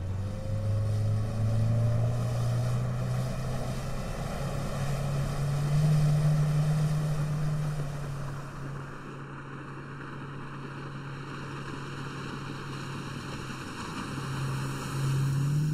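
Outboard motor on a flats boat running at speed, its pitch climbing in the first couple of seconds as it gets up to speed and again near the end, over a steady rush of water and wind.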